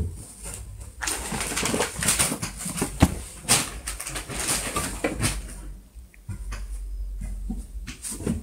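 Rustling with scattered knocks and taps as a baby monkey clambers over a wooden bed headboard and a mosquito net. The rustling is densest from about a second in until just past halfway, then it thins to a few light knocks.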